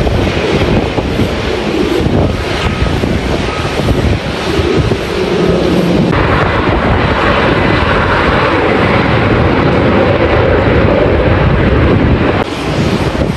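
Jet airliner engines running, mixed with heavy wind buffeting the microphone. The engine noise turns harsher about halfway through and eases near the end.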